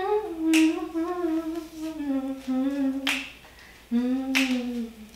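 A woman humming a tune in long held notes, with sharp finger snaps about half a second, three seconds and four and a half seconds in.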